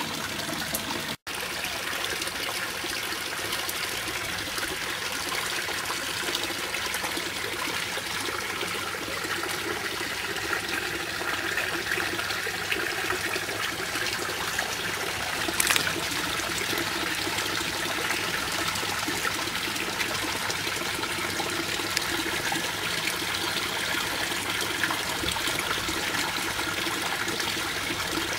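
Water trickling and splashing steadily into a fish tank. The sound cuts out for an instant about a second in, and there is one sharp click a little past halfway.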